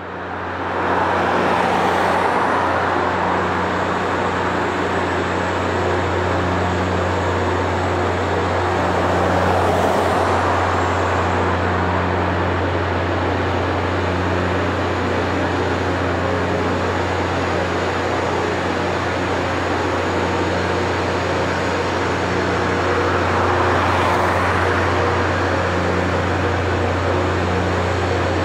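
Rail grinding train passing: a steady low drone from its diesel engines under a broad rasping hiss from the grinding stones on the rails. The sound fades in over the first second and swells louder three times as the units go by.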